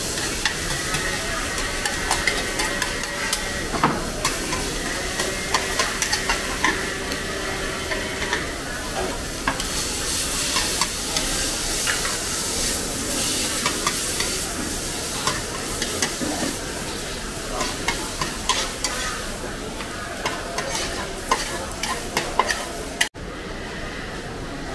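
Fried oyster omelette (egg and oysters) sizzling on a large flat wok while two metal spatulas scrape and clack against the pan, chopping and turning it in many quick strikes. The sound breaks off suddenly near the end.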